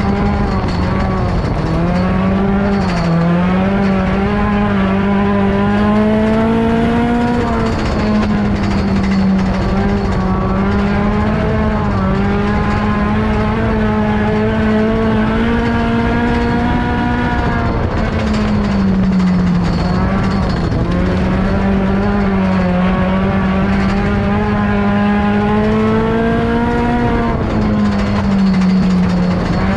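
Dirt-track race car's engine at racing speed, heard from inside the cockpit. Its pitch climbs steadily for several seconds and then drops back, over and over, as the driver gets on the throttle down the straights and lifts into the turns of the oval.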